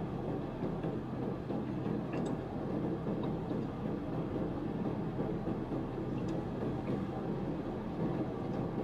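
Steady low hum of a car running, heard inside its closed cabin, with a couple of faint clicks.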